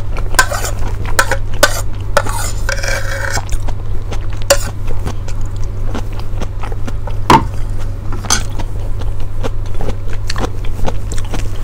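Cutlery clinking and scraping against a plate while eating, a scattering of short sharp clicks, with a steady low electrical hum underneath.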